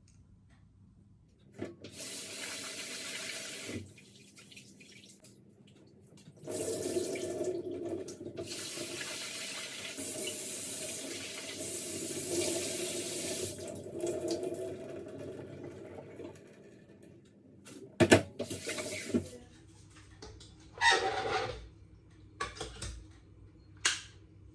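Water running from a kitchen tap into a sink, twice: briefly near the start, then for about ten seconds. This is followed by a few sharp knocks and clatters near the end.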